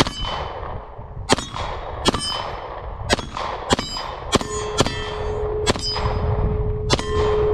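A Canik METE SFX 9mm pistol firing about nine shots in an uneven string. Steel plate targets ring with a clang after the hits.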